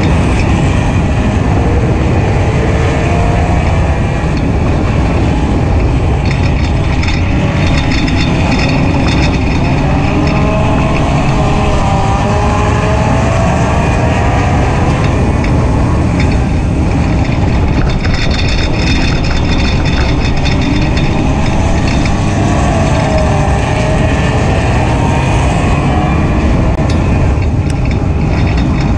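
Four-cylinder engine of a WISSOTA Hornet dirt-track race car heard from inside the car, running hard with its pitch rising and falling again and again as the driver accelerates and lifts, over heavy rumbling road and wind noise.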